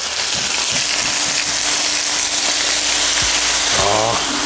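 Thin beef fillets sizzling in hot oil on a flat electric griddle, with aubergine slices and green pepper strips frying beside them; a steady, even sizzle.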